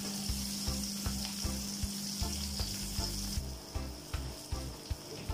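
Dried salted sapsap (ponyfish) frying in hot oil in a steel wok: a steady sizzle with scattered crackling pops. A low steady hum underneath stops about three seconds in.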